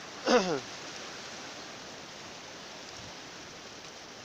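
Steady rushing hiss of shallow seawater at the shore. About a third of a second in comes a short, louder voice-like sound sliding down in pitch.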